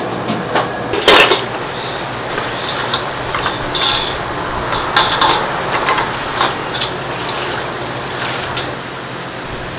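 Metal roasting skewers clanking and scraping against a stainless steel bowl as they are stirred and rinsed, with water pouring and splashing over them. A handful of sharp metallic clanks, the loudest about a second in and near the fourth second, over a steady hiss.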